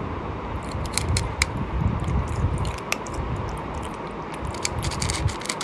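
A person chewing and biting into cooked sheep head, with wet, squishy mouth sounds and a few sharp clicks or crunches, over a steady low rumble.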